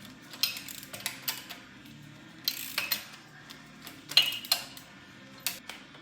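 Hand ratchet clicking in uneven runs as head bolts are backed out of a 5.7 Hemi cylinder head, with a few louder metal clinks, the loudest about four seconds in.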